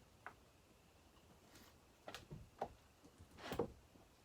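Faint, scattered clicks and knocks of hand work on a chainsaw crankcase as a new crankshaft seal is pushed home: a few short knocks, the loudest about three and a half seconds in.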